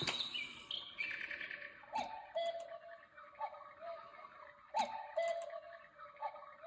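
Battery-operated quartz cuckoo clock sounding its hourly chime. It opens with a short run of high tinkling notes, then a two-note falling call repeats every few seconds, each call with a sharp click.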